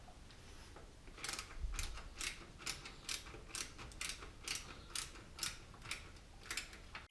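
Ratcheting screwdriver clicking about twice a second, roughly a dozen strokes, as a screw is driven to fasten a power supply into a PC case; the clicking stops near the end.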